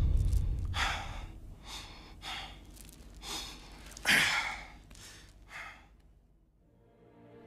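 A person breathing audibly in a run of short breaths, the strongest about four seconds in, dying away to silence about six seconds in.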